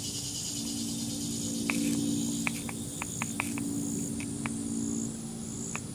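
Lead birdshot pellets trickling through a plastic funnel into a revolver cylinder chamber, heard as a string of small irregular clicks starting about two seconds in. Crickets chirp steadily throughout, over a low steady hum.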